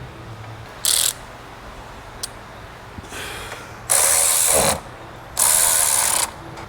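Rapid ratcheting clicks in loud bursts: a short one about a second in, then two longer ones of about a second each.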